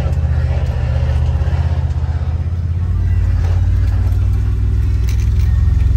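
Can-Am Defender side-by-side's engine running steadily while driving slowly, heard from inside the cab and getting slightly louder.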